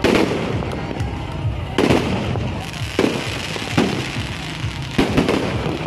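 Aerial fireworks bursting overhead, a sharp bang roughly every second with crackle in between.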